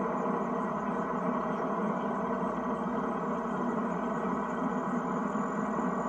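Tractor engine running steadily, an even drone.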